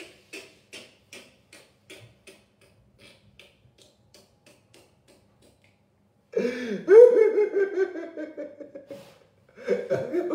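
A quick run of light clicks or taps, about four a second, dying away over the first few seconds; after a short pause a loud, drawn-out vocal cry that falls in pitch, followed by more voice near the end.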